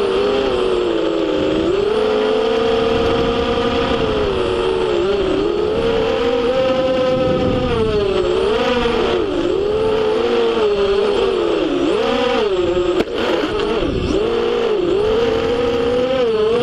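FPV racing quadcopter's brushless motors and propellers whining, the pitch rising and falling constantly as the throttle is worked through the course. About two-thirds of the way through there is a single sharp knock with a brief dip in the motor sound.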